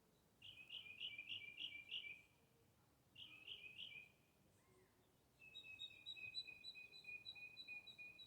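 A bird calling in three runs of rapid, evenly repeated high chirping notes. The third run, starting about halfway through, is the longest.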